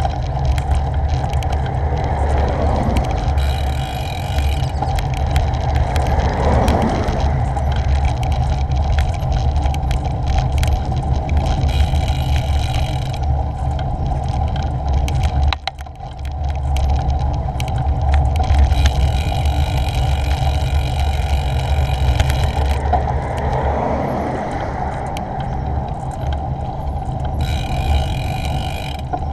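Wind buffeting the action camera's microphone over the tyre noise of a bicycle riding along a road, with cars passing on the road beside, swelling and fading about 3, 7 and 24 seconds in.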